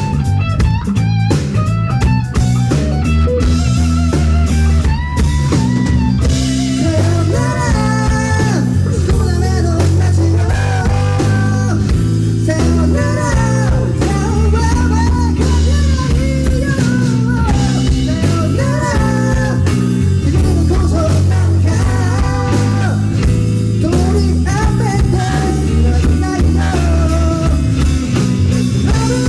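Live rock band playing loud: electric guitar, bass and drum kit. For the first few seconds the guitar picks short, choppy notes; then a sliding, bending melodic lead comes in over a steady, heavy bass.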